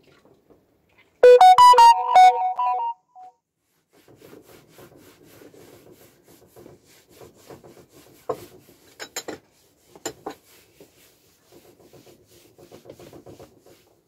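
A short, loud electronic jingle of a few quick notes about a second in. After it comes faint rubbing of a cloth wiping a wooden table, with a few sharp knocks.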